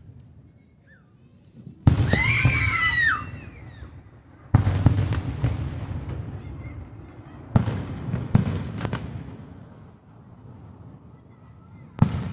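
Aerial fireworks shells bursting: five loud booms, at about two, four and a half, seven and a half, eight and a half and twelve seconds, each trailing off in a rumble, with high wavering whistling tones over the first.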